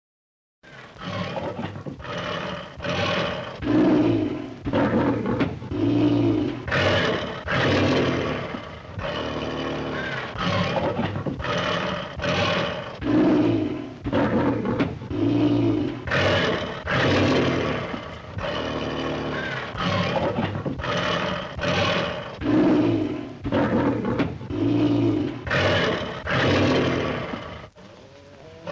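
Lions roaring in a long run of repeated roars and grunts, about one a second.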